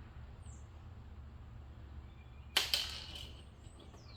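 Two sharp clacks of small hard parts being handled during assembly, about two and a half seconds in and quickly one after the other, each ringing briefly over a low steady hum.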